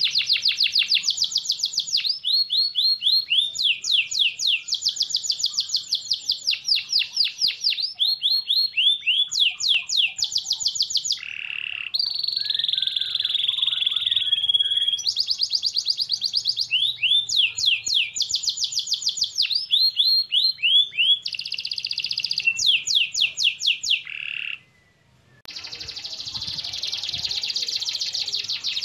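Canary singing: fast trills of repeated chirping notes that change speed and pitch from one run to the next, with a short break near the end.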